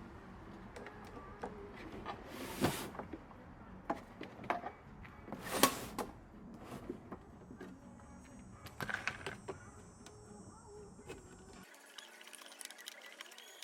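Scattered clicks, knocks and short scrapes of small parts and tools being handled during the disassembly of an Intex spa pump, with two louder knocks about three and six seconds in.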